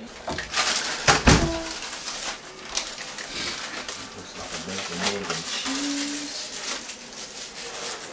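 Room clatter: scattered knocks, clicks and rustling of things being handled and moved about, with one loud thump just over a second in.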